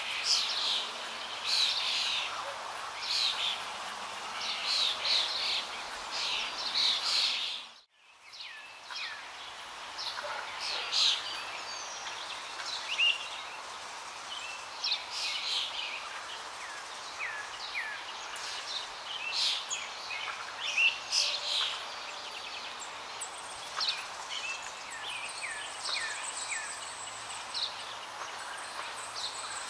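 Small songbirds chirping and calling over a steady background hiss; the sound fades out briefly about eight seconds in, then comes back.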